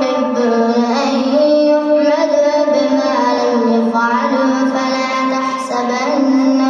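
A child reciting the Quran in melodic tilawah style, drawing out long sustained notes that step up and down in pitch without a pause for breath.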